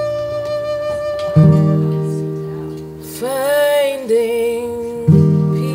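Acoustic guitar: a chord struck about a second and a half in and another near the end, each left to ring and fade, with a short sung phrase from a woman's voice between them.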